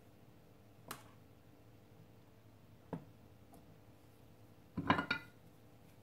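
Small metal tools being handled on a workbench: a faint click about a second in, another near three seconds, then a short clatter of several quick clicks about five seconds in as the soldering iron is taken up.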